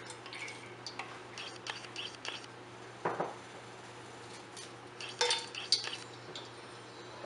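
Kitchen utensils and small dishes clinking and tapping while ingredients are handled: scattered light clinks, a stronger knock about three seconds in, and a cluster of clinks a little after five seconds. A faint steady low hum runs underneath.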